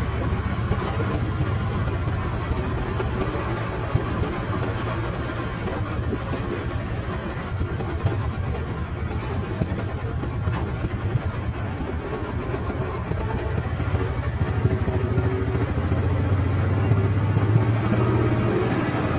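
A motor vehicle's engine running steadily while under way, with road and wind noise; the low engine hum grows louder near the end.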